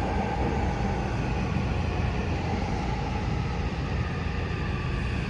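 Toei 6500 series electric train running through a tunnel, heard from inside the car: a steady low rumble of wheels and running gear with a faint whine above it.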